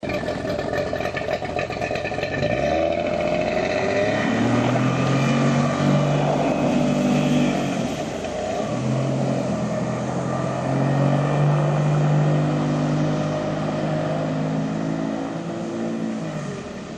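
Wartburg car engine fitted in a boat, running and revving, its pitch climbing, holding and dropping back several times.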